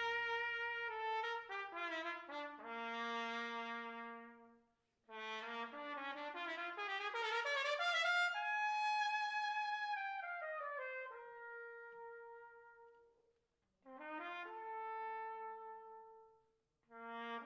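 Brass music, trumpet-like: phrases of held notes and sliding runs that break off briefly about five seconds in, again about thirteen seconds in, and once more near the end.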